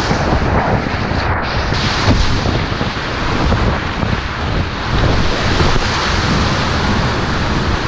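Steady roar of whitewater rapids heard from inside a kayak running them, with waves crashing over the boat and water splashing onto the microphone.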